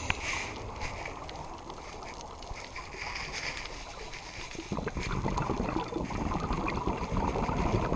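A scuba diver's regulator breathing, heard through an underwater camera housing: a short hiss of inhaling around three seconds in, then a louder, crackling rush of exhaled bubbles from about five seconds on.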